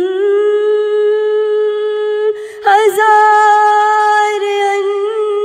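A woman's solo voice singing an Urdu naat, drawing out long held notes with slight wavers and no accompaniment. There is a short break for breath about two and a half seconds in.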